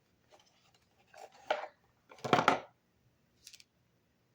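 Handling noises as soap bars and their packaging are moved on a table: light rustling, a louder knock about two seconds in, and a brief rustle near the end.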